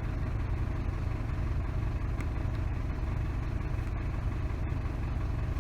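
Isuzu D-Max pickup engine idling steadily while its air-conditioning compressor's magnetic clutch is being jumped directly with a wire, to test whether the compressor engages.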